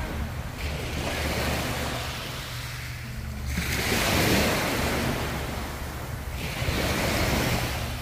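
Small sea waves washing onto a sandy beach, the surf swelling and falling back about every three seconds, over a steady low rumble of wind on the microphone.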